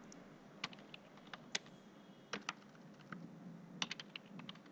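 Faint clicks of a computer keyboard being typed on: about a dozen single keystrokes at uneven intervals, with a small cluster near the end.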